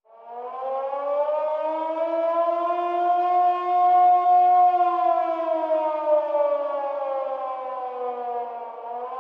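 Air-raid siren wailing: its pitch rises at the start, peaks about four seconds in, slowly falls, and begins to rise again near the end.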